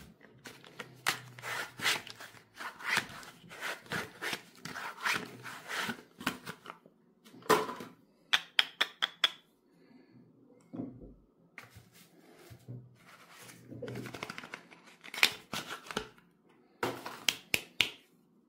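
Hard bars of soap handled by hand: fingers and nails scratching and tapping the soap, and the bars clicking against each other. The sound is a quick run of small clicks and scrapes that comes in several bursts with short pauses between.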